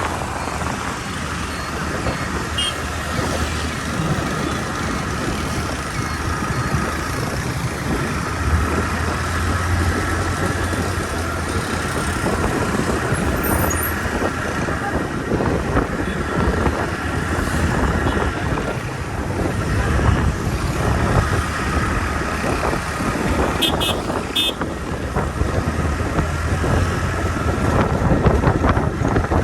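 Steady road-vehicle and traffic noise: a continuous rumble with a low engine hum underneath, and a few faint high ticks about two-thirds of the way through.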